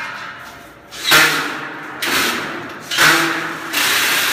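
Power drill driving screws into steel studs in four short bursts, each starting sharply and lasting under a second; the last runs on to the end.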